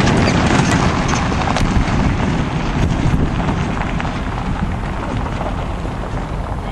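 Horse's hooves galloping on turf, fading slightly as the horse moves away, over a steady low rumble.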